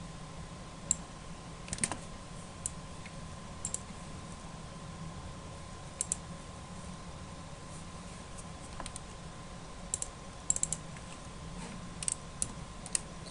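Sparse computer mouse clicks, single and in small clusters about a second or more apart, over a faint steady hum with a thin steady whine.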